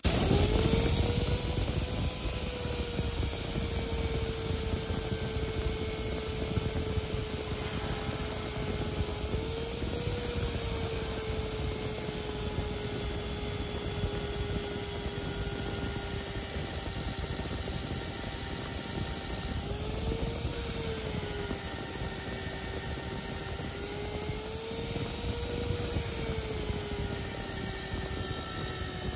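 Portable magnetic drill's electric motor starting and running under load as its bit cuts through a steel truck frame rail, a steady whine that briefly rises in pitch three times as the load eases.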